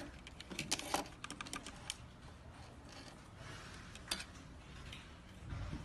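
Small plastic clicks and taps from drone parts being handled and set down on a desk: a quick run of clicks in the first two seconds, a single sharper click about four seconds in, and a dull knock near the end.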